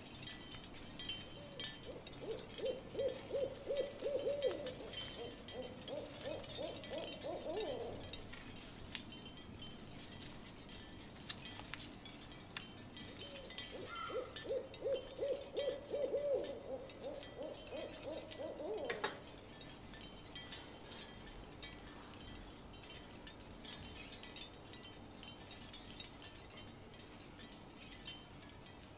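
Owl-like hooting: two runs of rapid, low pulsed notes, each several seconds long and about ten seconds apart, each rising a little in pitch at its end.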